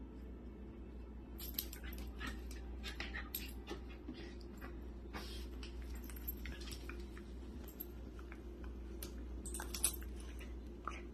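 Two dogs play-fighting: a quick, irregular run of scuffles, snaps and mouthing sounds as they wrestle and paw at each other, starting about a second in.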